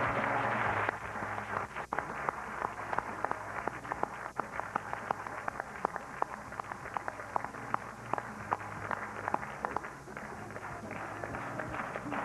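Audience applause: a dense patch of clapping in the first second, thinning into scattered single claps over a low steady hum.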